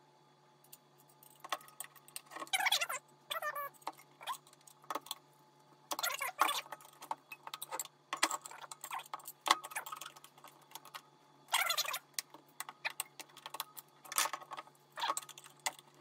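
Irregular metallic clicks, clinks and scrapes of a screwdriver working a microwave magnetron's metal housing apart, with small metal parts rattling.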